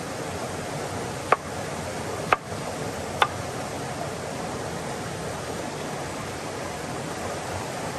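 Steady rush of a waterfall cascading into a pool, with three sharp knocks of a knife chopping vegetables on a wooden cutting board, about a second apart in the first few seconds.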